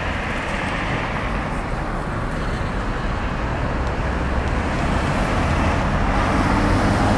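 Road traffic on a street, with a car's tyre and engine noise growing louder as it comes closer near the end.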